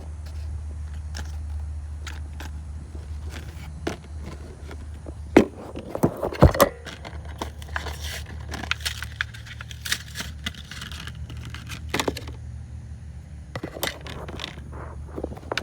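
Scattered metallic clinks, jangles and scrapes of hand tools and a new hose clamp being handled while fitting a radiator hose, loudest a little past the middle, over a steady low hum.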